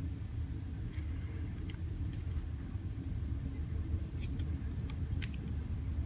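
Steady low rumble of room background noise, with a few faint small clicks of pliers being set against a copper wire peg in a wooden model's mast.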